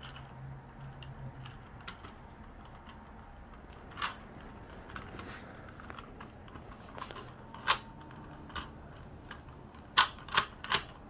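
Plastic Rubik's cube being turned one-handed: irregular clicking taps of the layers, with a quick run of sharper clacks near the end.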